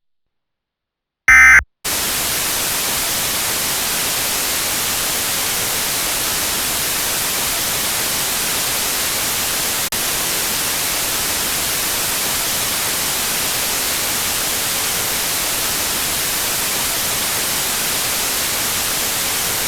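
Steady broadcast static hiss, like a television or radio channel gone off the air, after a short, loud electronic blip. It signals that the transmission has ended.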